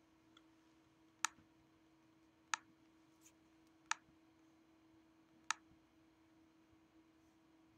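Four sharp computer mouse clicks, spaced about a second and a half apart, over a faint steady hum.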